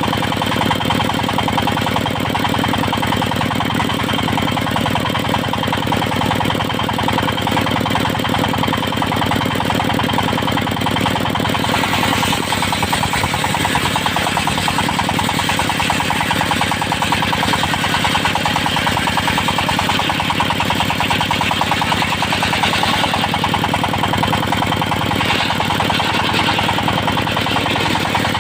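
Engine-driven circular sawmill running steadily. About twelve seconds in, a higher, noisier sound joins the drone as the blade cuts into teak.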